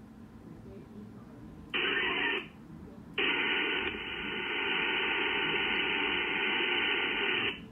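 VARA HF digital data signal over an Icom IC-705 transceiver on 17 meters. A short burst comes about two seconds in, then a long burst from about three seconds until near the end. Each is a dense hiss with several steady tones in it, starting and stopping abruptly, with faint band noise between them. It is the data exchange of a Winlink email session with a gateway station.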